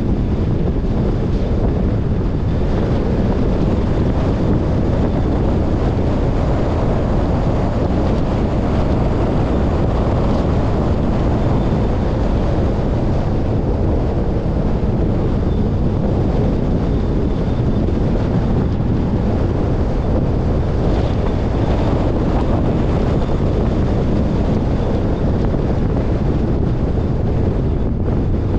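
Steady wind and road noise from a car driving at speed, a loud, even rumble heaviest in the low end, with wind buffeting the microphone.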